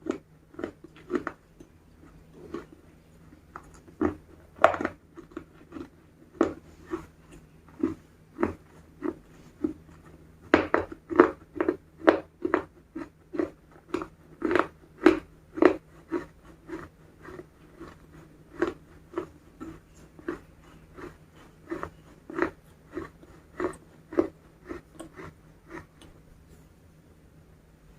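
Close-miked chewing of crispy KFC fried chicken: a steady run of crunchy bites and chews, about two crunches a second, loudest in the middle stretch.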